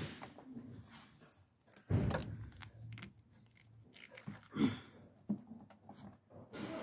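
A sharp click, then scattered faint clicks, knocks and rustles of things being handled, with a louder knock about two seconds in.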